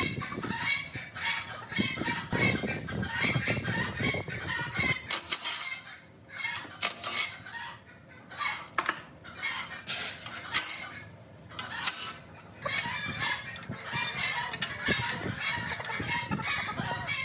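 Chickens clucking, with a rooster's crow among them, over scattered sharp knocks. The calls thin out and grow quieter through the middle stretch, then pick up again near the end.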